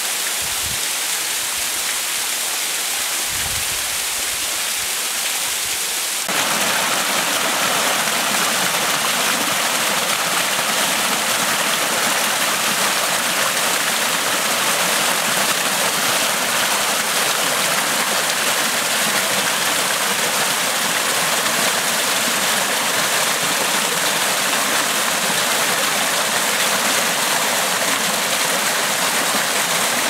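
Water falling down a rock face, a steady splashing hiss. About six seconds in it changes abruptly to a louder, closer shallow stream rushing and splashing over stones.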